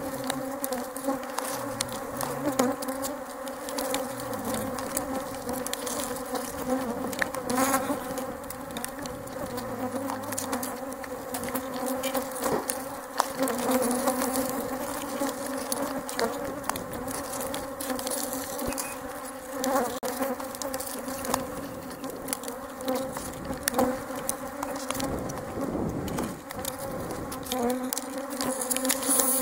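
Many honey bees flying close around an opened hive, buzzing in a steady drone. There are a few light knocks now and then.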